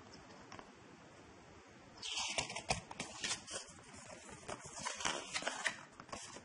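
Folded paper leaflet rustling and crackling as it is unfolded and turned over in the hands, starting about two seconds in.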